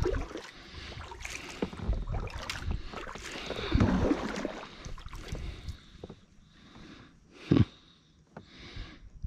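Kayak and paddle sounds as the boat passes beneath a fallen tree: irregular splashes, knocks and scrapes, loudest around four seconds in, then quieter, with one sharp knock about seven and a half seconds in.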